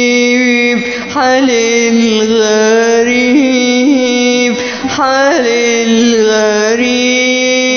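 Arabic song: a single melodic line held on long notes, with quick ornamental turns about a second in and again about five seconds in.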